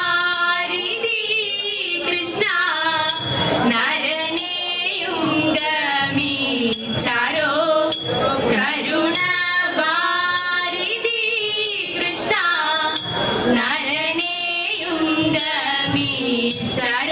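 Women's voices singing a Thiruvathira song in a sliding, ornamented melody, with hand claps keeping time.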